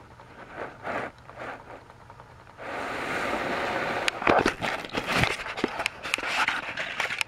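Camera handling noise as the camera is swept and jostled. A steady rushing scrape starts suddenly about two and a half seconds in, then irregular knocks and clicks follow.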